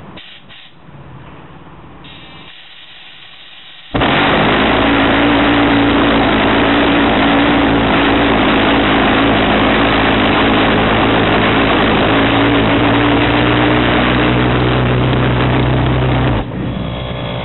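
Bent pulsejet engine lighting suddenly about four seconds in and then running at full power with a steady low drone. The level drops sharply near the end as it is throttled back or shut down.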